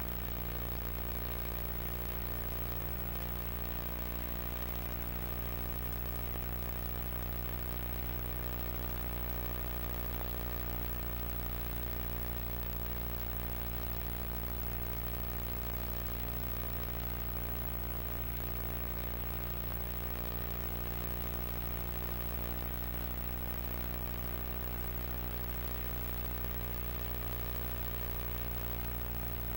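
Steady electrical mains hum with a stack of even overtones and a light hiss, unchanging throughout.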